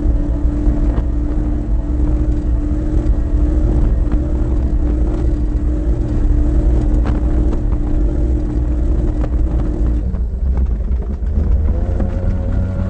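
Racing powerboat's engine running at speed, heard from inside the cockpit as a steady engine note over a heavy rumble of wind and water; the note changes about ten seconds in.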